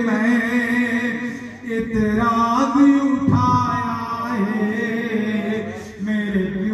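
A man chanting a devotional poem into a microphone in long, drawn-out melodic phrases, with brief pauses between them.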